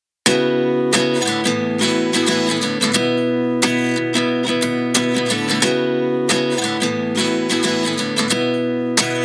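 Background music: a strummed acoustic guitar intro with a steady rhythm, starting about a quarter second in.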